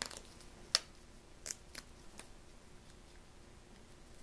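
Small paper Monopoly game piece being picked and peeled open by hand: four or five short, crisp paper snaps in the first couple of seconds, the loudest about three-quarters of a second in.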